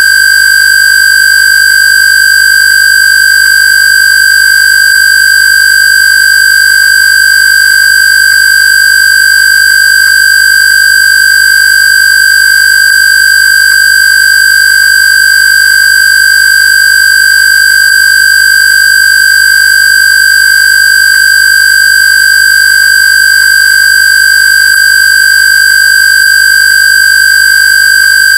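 A steady, high-pitched electronic square-wave tone held at one unchanging pitch, with a faint low hum beneath it: a Rife/AWG frequency tone.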